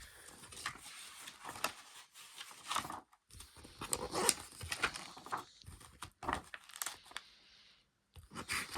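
Paper rustling and crackling as book pages are turned and handled, with small clicks and knocks, in several bouts with short pauses.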